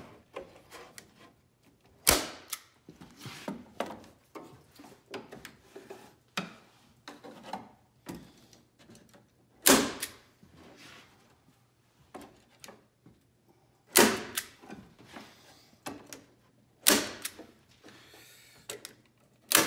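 Manual Arrow staple gun firing staples through cedar strips into the canoe forms: about five sharp snaps several seconds apart, with quieter sounds of the wooden strips being handled and pressed into place between shots.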